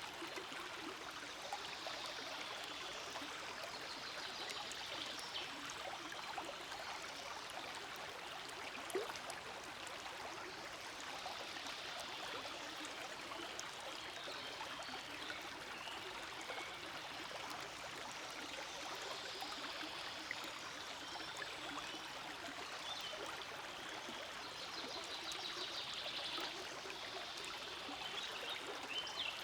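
Forest stream flowing: a steady, continuous rush and babble of running water, with a few brighter, busier stretches now and then.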